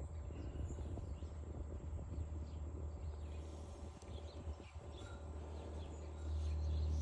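A steady low rumble with faint bird chirps over it; the rumble gets louder about six seconds in.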